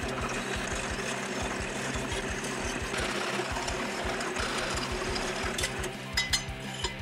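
Bench drill press running with a 14 mm bit cutting through a square steel tube: a steady motor hum under an even grinding noise. About five and a half seconds in, a few sharp metallic clinks as the tube is shifted on the iron table.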